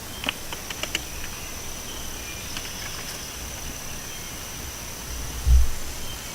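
Insects chirring in one steady high-pitched tone. There are a few light clicks within the first second and a brief low thump near the end.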